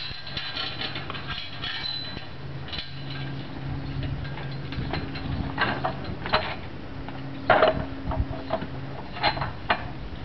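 Metal boat stands clinking and clanking as they are set and wound up against a boat's hull, with several sharp clanks in the second half. A steady low machine hum runs underneath.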